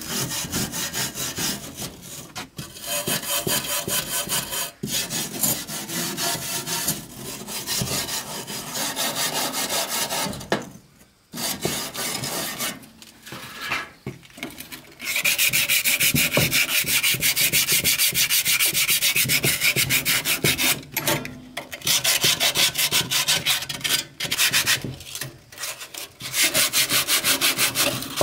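Rapid, repeated rubbing and scraping strokes on wood, as in hand woodworking. The strokes stop briefly a few times about a third of the way in, then run on in a brighter, steady series from about halfway.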